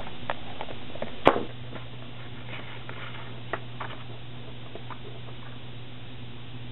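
Hands fitting small machine screws and washers to pleated plastic lathe bellows: light scattered clicks and taps, with one sharp louder clack about a second in, over a steady low hum.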